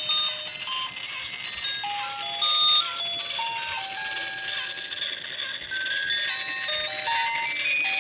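Climbing Santa toy playing a tinny electronic Christmas melody, one plain beeping note at a time stepping up and down.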